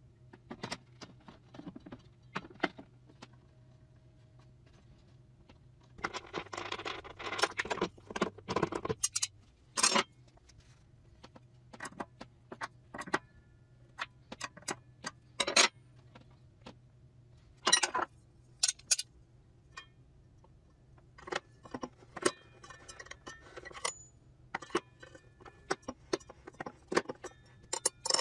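Irregular clicks, knocks and light metallic clinks of hard objects being handled, with a denser rattling, scraping stretch about six seconds in and another cluster near the end.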